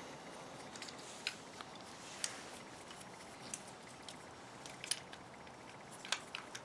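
Faint, scattered light clicks and taps of a metal ATV carburetor body and its small parts being handled and turned over in gloved hands, over a low steady hiss.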